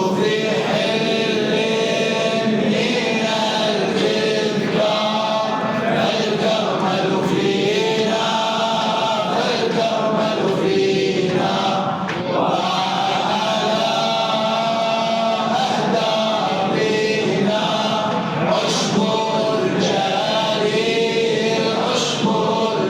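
A group of male voices singing together, choir-like, in long held lines of melody, a poem set to a chant-style tune.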